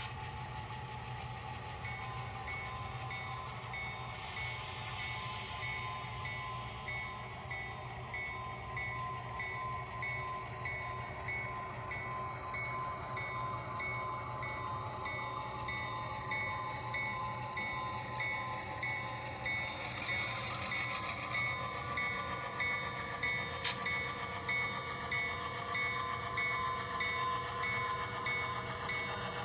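Sound-equipped HO scale diesel locomotives running, with a simulated diesel engine hum and a bell ringing in an even repeating pattern. The sound grows louder in the second half as the locomotives come closer.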